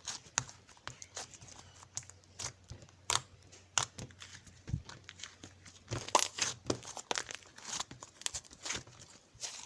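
Paper and plastic being handled up close: irregular crinkling, tearing and peeling sounds with small clicks and taps, busiest a little past the middle, over a faint steady low hum.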